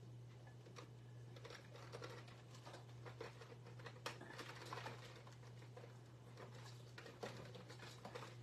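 Near silence: a steady low hum with faint, scattered taps and rustles, like small craft supplies being handled.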